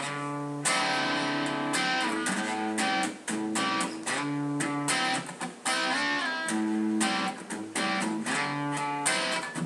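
Guitar music: strummed chords, each struck and left ringing, with a new chord about every second.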